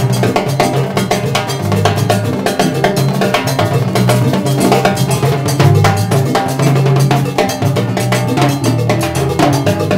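Live salsa band playing: a cowbell and timbales ring out a fast, steady clave-based pattern over electric bass, keyboard montuno and congas.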